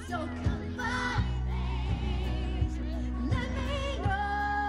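Live band playing a pop song with electric and acoustic guitars, keyboard, bass and drums under a singer. The singing has wavering vibrato notes, with a long held note near the end, over a steady drum beat.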